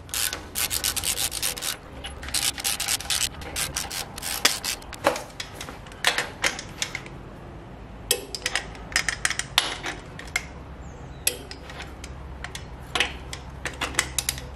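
Hand ratchet clicking in quick runs of strokes, with short pauses between runs, as screw-in diesel fuel injectors are run down into a 7.3 IDI cylinder head.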